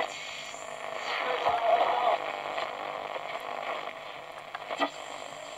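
A 2P3 superheterodyne medium-wave AM transistor radio playing through its own speaker while being tuned: steady hiss and static between stations, with a few short clicks near the end.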